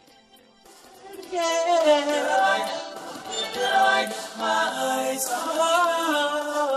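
Unaccompanied male vocal group singing in close harmony, a cappella with no instruments. After a short pause the voices come in about a second and a half in and hold sustained, gliding harmony lines.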